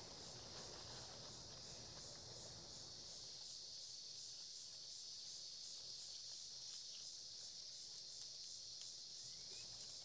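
Faint, steady high-pitched chirring of insects, with a couple of faint ticks near the end.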